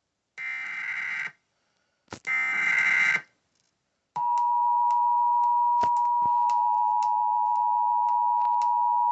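Emergency Alert System SAME header: two raspy digital data bursts of about a second each, then a loud, steady EAS attention tone just under 1 kHz starts about four seconds in, with scattered clicks over it.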